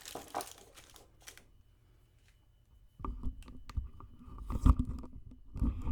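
Handling noise: clicks, rustles and knocks of plastic brake-bleeder parts being picked up and moved, with the loudest knocks a little past the middle and near the end.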